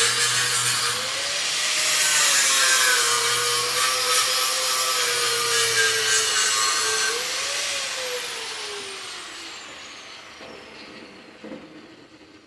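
Electric power tool working metal, its motor tone jumping up briefly about a second in and again around seven seconds, then switched off and spinning down with a falling whine that fades away over the last few seconds.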